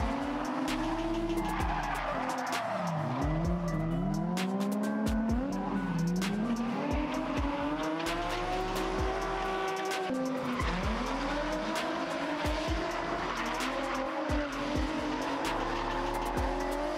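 Two drift cars sliding in tandem: their engines rev hard, rising and falling in pitch again and again, over continuous tyre squeal.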